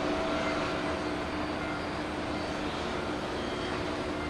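Boeing 747-400 jet engines running at low thrust as the airliner taxis: a steady whine holding several fixed pitches over a steady rush of engine noise.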